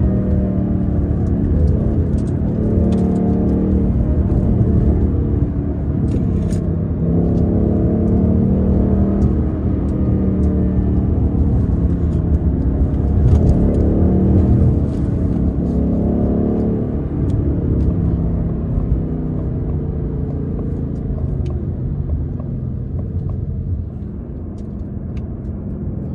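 Ford Mustang GT's 5.0-litre V8 exhaust, heard close up at the tailpipe while driving, its revs rising and falling repeatedly as it accelerates and eases off. It settles lower and quieter near the end.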